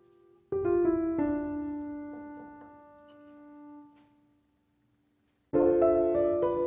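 Background piano music: a few notes struck in quick succession about half a second in ring and slowly fade, then after a short break another chord of notes comes in near the end.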